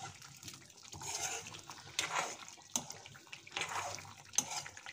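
Chicken pieces being stirred with a metal ladle in a karahi of bubbling spiced liquid over a high flame, as the masala is fried down: wet bubbling and sloshing in swells, with a few sharp clicks of the ladle against the pan.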